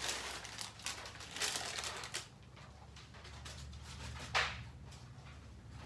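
Parchment paper and a cloth tea towel rustling and crinkling as they are handled around a rolled cake, busiest in the first two seconds; then quieter, with one brief rustle about four seconds in.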